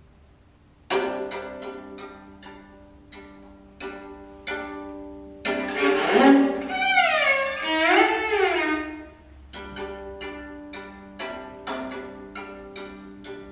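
Solo viola playing single plucked notes that start sharply and ring away. A louder middle passage, bowed, slides up and down in pitch.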